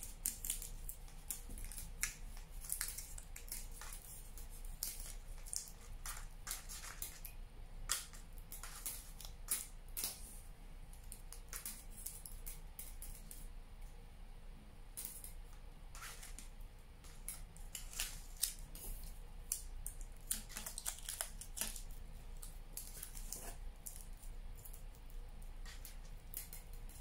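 Aluminium foil crinkling in short, irregular crackles as it is squeezed and wrapped around the joints of a wire armature.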